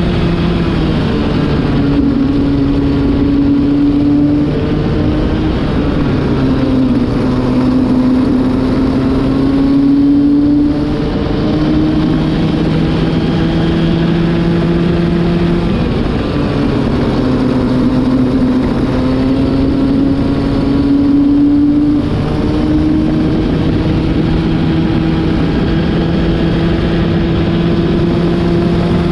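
Racing kart engine at high revs on track, its pitch climbing slowly for several seconds at a time and dropping sharply several times as the throttle is lifted for corners. A new engine being run in.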